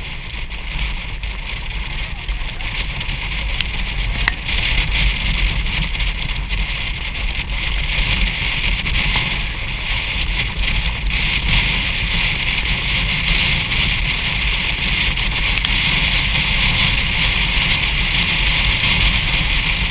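Wind rushing over the microphone of a camera on a harness-racing sulky moving at speed behind a trotting horse, with a low rumble underneath; a steady hiss that grows louder about four seconds in.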